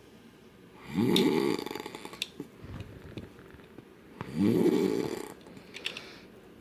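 A man snoring very loudly in his sleep: two long snores about three seconds apart, each lasting about a second.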